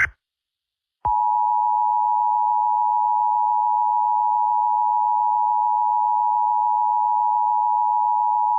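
Emergency Alert System two-tone attention signal, the 853 and 960 Hz pair sounded together as one steady, unbroken tone, starting about a second in. It announces an emergency alert about to be read, here a tornado warning.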